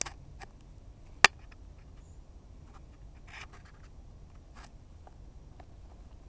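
Light scratching and scuffing as a long-haired cat paws and digs at thin snow on patio tiles, with a few sharp clicks, the loudest just over a second in.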